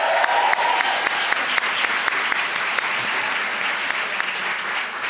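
Audience applauding, a dense patter of many hands clapping that eases off a little toward the end.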